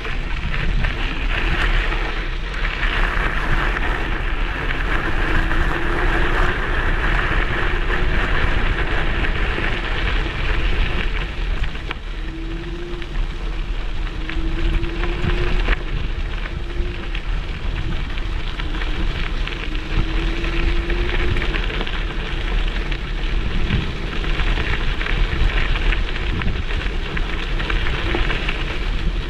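Wind rushing over the microphone of a camera clamped to a moving electric scooter, over a steady rumble of tyres on the road. A faint whine rises a few times in the middle.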